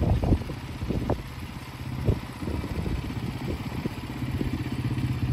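Engine idling steadily, a low, evenly pulsing hum that grows a little louder near the end. Wind buffeting on the microphone dies away in the first half second, and a few light knocks are scattered through.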